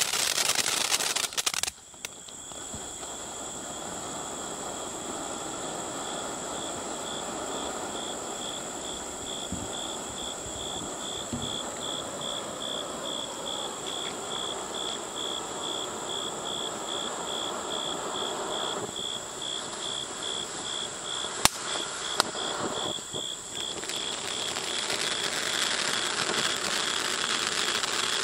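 Legend Fireworks 'Dragon King' fountain firework burning: loud crackling for the first two seconds, then a steady spraying hiss that slowly grows louder, with two sharp cracks a little past the middle.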